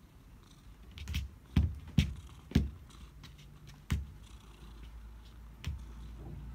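A cat's paws thumping on a wooden floor as it pats and pounces at the floor: a run of about six dull thumps at uneven intervals, bunched in the first half, with one more near the end.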